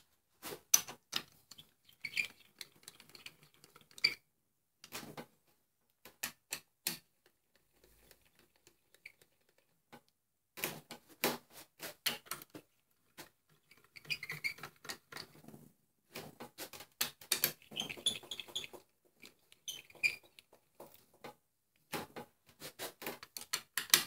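Socket on a hand speed handle running steel bolts down into the aluminium 09G transmission case: irregular metallic clicks and rattles in short clusters, with quiet gaps between.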